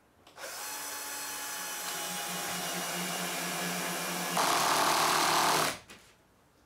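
Cordless drill driving a screw through a metal hinge into the wooden hive lid: a steady motor whine for about four seconds, getting louder for its last second or so as the screw seats, then stopping suddenly.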